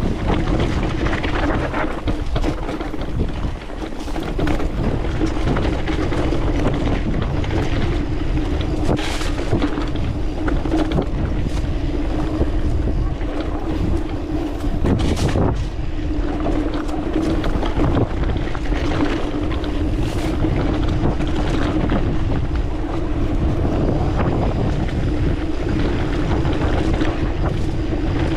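Wind rushing over the camera microphone on a fast mountain-bike descent, with the tyres rolling and the bike rattling over a rocky dirt trail. Sharp knocks from bumps are scattered through it, the strongest about 15 seconds in.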